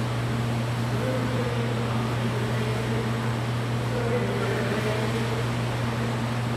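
Steady low machinery hum of the equipment around an indoor aquarium tank, unchanging throughout.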